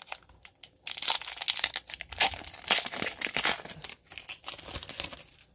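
A foil Pokémon TCG booster pack wrapper torn open by hand and crinkled: a run of dense crackling and rustling, with a short lull about four seconds in.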